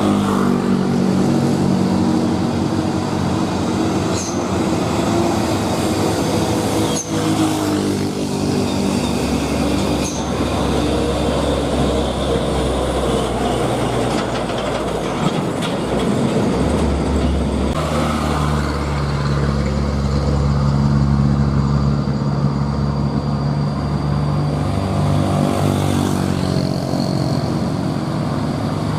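Large truck engine running steadily under a low drone. About two-thirds of the way through, its note changes to a lower, stronger tone.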